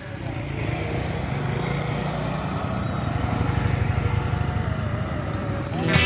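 Small motorcycle engines running close by, a steady low rattling drone that grows a little louder toward the middle as bikes come along the road. Music starts right at the end.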